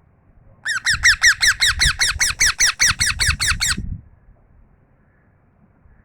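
Parrot giving a rapid run of short, harsh calls, about six a second, each dropping in pitch. The run starts about half a second in and lasts about three seconds.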